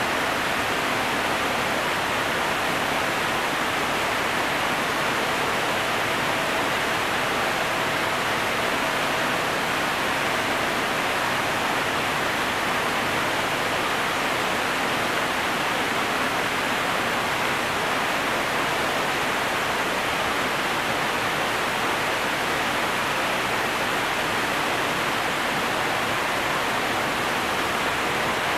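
Water pouring into a canal lock chamber: a steady, unbroken rush.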